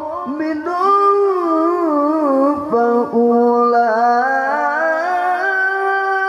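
Male qari reciting the Quran in melodic tilawah style into a microphone, the voice winding up and down through ornamented runs. It breaks off briefly twice in the middle, then settles into a long held note near the end.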